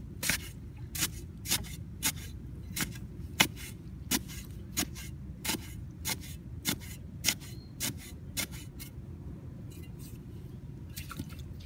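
A digging tool chopping into soil in a steady rhythm, about three strikes every two seconds, stopping about nine seconds in.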